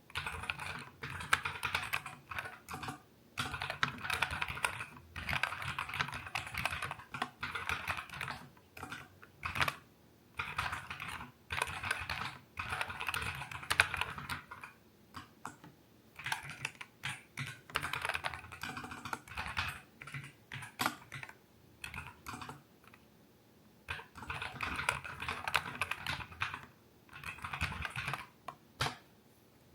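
Typing on a NuPhy Air60 V2 low-profile mechanical keyboard with Aloe switches: fast runs of key clicks broken by short pauses several times.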